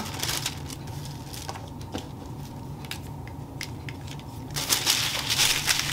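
Paper rustling as a tissue sewing-pattern piece and tracing paper are shifted on a cutting mat: a few faint taps first, then about four and a half seconds in a loud stretch of rustling.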